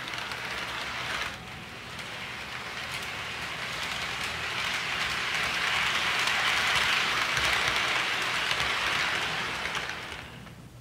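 HO scale model freight train running on Kato Unitrack: a steady rushing rumble of wheels on rail that swells as the train comes closer, peaks as it passes, and fades away near the end.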